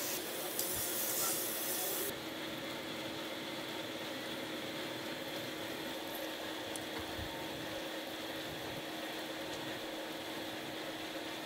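A tool scraping and prising a hard salt crust off a salt-baked fish on a metal tray, a harsh hiss that cuts off suddenly about two seconds in. After that, a steady mechanical hum with faint steady tones.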